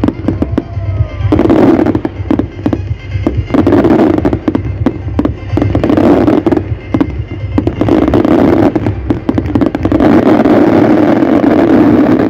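Aerial fireworks display: bangs and dense crackling of bursting shells, coming in several loud volleys, the longest of them filling the last few seconds.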